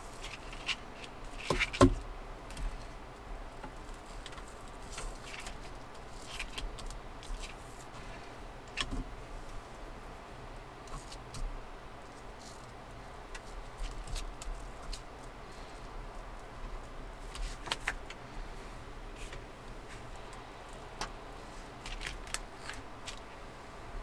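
Scattered light clicks, clinks and rattles of small objects being handled, with a louder clatter about two seconds in.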